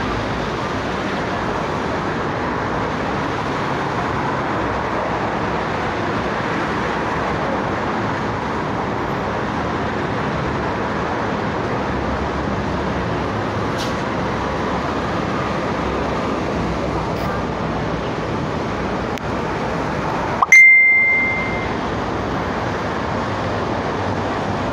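Steady road traffic noise from a busy multi-lane road below. About 20 seconds in comes one loud ding, a single high bell-like tone held for just over a second.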